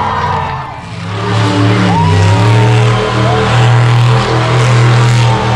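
Monster truck engine running hard at high revs. The note dips briefly just before a second in, then builds back up and holds steady.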